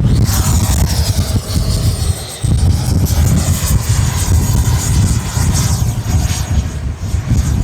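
Electric ducted fan of an RC jet (an 80 mm WeMoTec Midi Evo EDF in a Freewing Avanti S) whining as the model flies past, its pitch sliding down over the first few seconds. Heavy wind buffeting on the microphone rumbles underneath.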